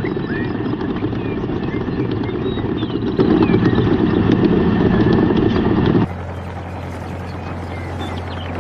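A small motor runs steadily with a low buzzing hum and grows louder about three seconds in. About two-thirds of the way through it cuts off abruptly to a quieter, steady low hum.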